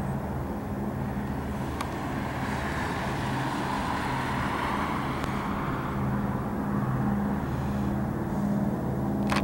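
Piston engines of two propeller-driven warplanes flying past at an air show: a steady engine drone with a low hum that grows a little louder in the second half.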